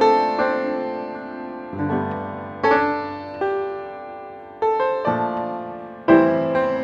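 Background piano music: slow notes and chords, each struck and left to ring and fade.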